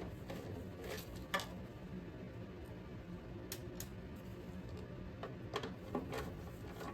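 A few faint, scattered clicks and light taps of hand tools and metal parts during work on a furnace's draft inducer assembly, over a low steady hum.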